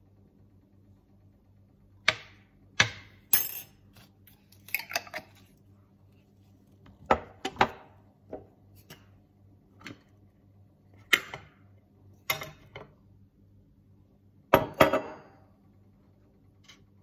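Kitchen clatter: irregular sharp knocks and clinks of a jar, spoon and dishes being handled and set down on the counter, the loudest cluster near the end, over a faint low steady hum.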